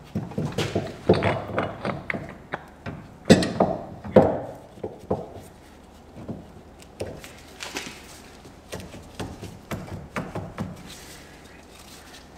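Metal clunks and knocks as a new front wheel hub bearing assembly is pushed by hand over the axle spline into the steering knuckle, a tight fit. The heaviest two knocks come about three and four seconds in, followed by lighter taps and scraping as it is worked further in.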